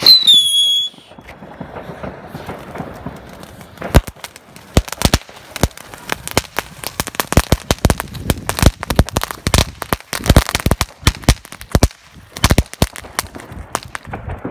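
Small ground fireworks going off: a brief high whistle that dips slightly in pitch at the start, a hiss of spraying sparks, then from about four seconds in a long run of sharp, irregular crackling pops that dies away near the end.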